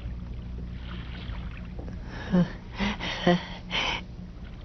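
Steady low hum of a steamboat's engine, with a boy's short gasps and effort sounds coming four times in the second half.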